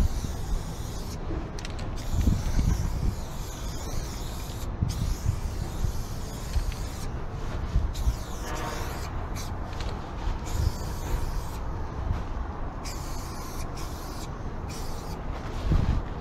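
Aerosol spray paint can hissing in bursts, cutting off and starting again many times as lines are sprayed, over a steady low rumble.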